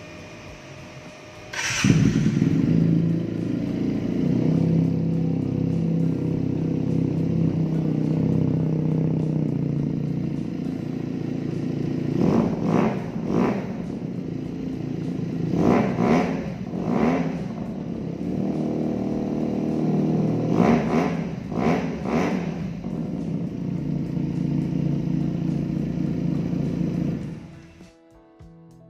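Benelli TNT250 motorcycle engine with an aftermarket racing exhaust starting about two seconds in, then idling with a deep, steady note. It is blipped in three short groups of quick revs before the sound cuts off near the end.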